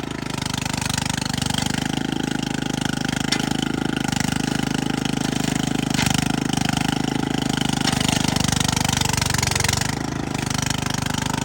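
Remote-control brush mower's engine running steadily with a rapid firing pulse while cutting through thick overgrowth.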